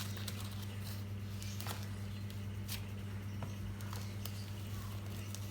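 Scattered light clicks and taps of toy parts and packaging being handled, a few each second, over a steady low hum.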